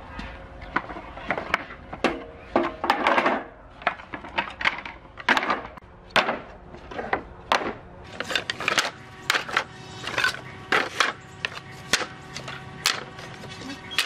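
Old wooden planks knocking and clattering against each other as they are stacked one by one onto a wheeled wooden dolly, in a series of sharp knocks that come faster in the second half.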